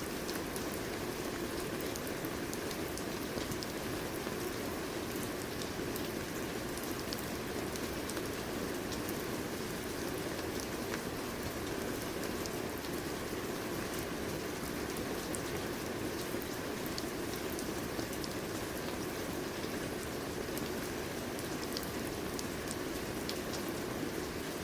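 Steady rain falling on a surface, an even hiss with many small drop ticks and no let-up.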